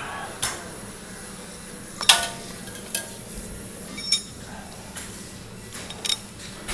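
Metal gym weights clanking and clinking about six times at uneven intervals, the loudest knock about two seconds in with a short metallic ring after it.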